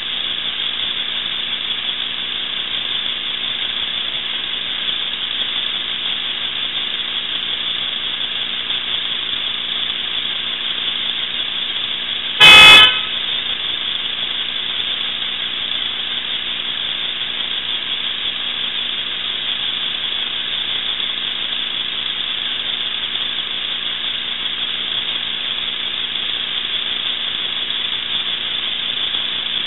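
Steady hiss and a faint hum from a security camera's microphone. About twelve seconds in, a single short, very loud pitched beep distorts the recording.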